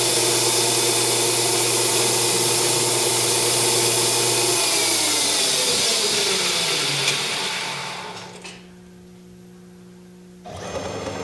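Grizzly G0602 lathe running with the spindle turning aluminium stock, a steady whine over a hiss. About four and a half seconds in, the spindle is switched off and winds down, its whine falling in pitch over about three seconds until the machine is quiet. A short burst of noise comes near the end.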